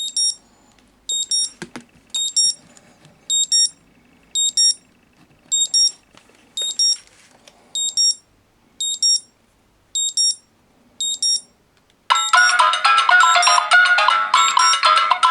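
Smartphone alarm and incoming-call ringtone going off together: a high electronic double beep repeats about once a second, and near the end a melodic ringtone starts up and plays over the beeps.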